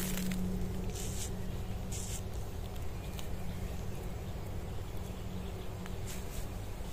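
A handful of short rustling swishes, several about a second apart early on and more near the end, over a steady low hum.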